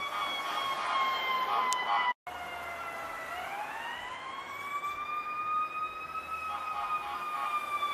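E2QB siren sounding its wail tone: the pitch slides slowly down, breaks off briefly about two seconds in, then winds slowly back up from about three seconds in and levels off near the end.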